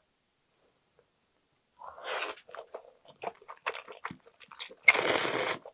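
A mouthful of jjolmyeon noodles with vegetables being slurped and chewed: a wet slurp about two seconds in, smaller mouth clicks and smacks, then a longer, louder slurp near the end.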